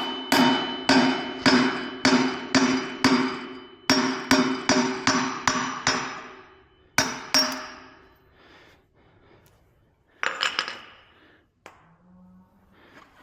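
Hammer blows driving an old wheel bearing out of a Yamaha XT225 dirt bike hub, about fourteen strikes at roughly two a second in short runs, the wheel ringing under them. A brief metallic clatter follows a few seconds after the hammering stops.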